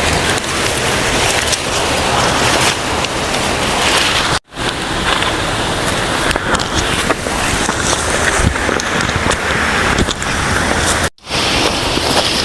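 Waterfall water rushing in a loud, steady hiss, cut off twice for an instant by edits.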